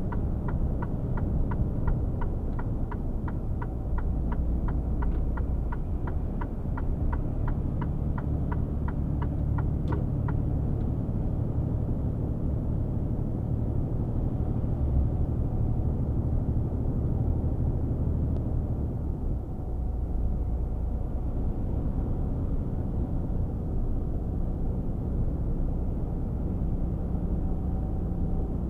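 Cab interior of a Mercedes-Benz Actros 1848 truck at motorway speed: a steady low drone of its inline-six diesel engine with road noise. The turn-signal indicator ticks evenly, about three times a second, for the first ten seconds during a lane change, then stops.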